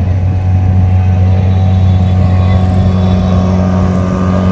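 Outboard motor of a small passenger boat running steadily as the boat moves across the water.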